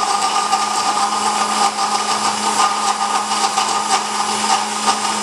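Electric mixer-grinder (blender) motor running at a steady speed, blending cold milk, coffee, sugar and ice cubes.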